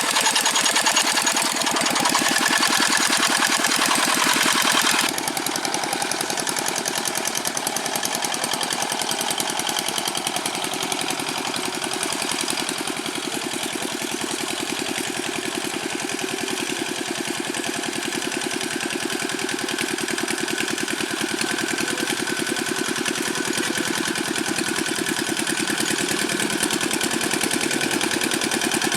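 Single-cylinder Dongfeng diesel engine of a Quick G600 two-wheel hand tractor running steadily with a fast, even chugging. About five seconds in the sound changes abruptly and loses some of its high hiss.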